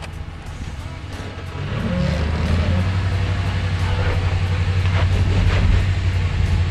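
RAM 1500 pickup's engine pulling under throttle, building up about two seconds in and holding steady, as the truck works its way forward out of a ditch in 4WD with brake pressure applied. Background music plays underneath.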